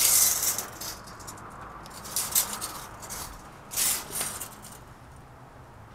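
Scraping and rustling handling noises: a longer scrape in the first second, then a few short scratchy ones.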